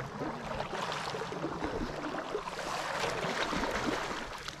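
Shallow river water babbling and splashing close to the microphone, with splashing that grows a little louder toward the end as a hooked king salmon thrashes at the surface.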